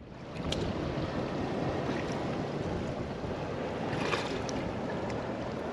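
Steady rush of sea surf at the shore, mixed with wind on the microphone, with a couple of faint clicks.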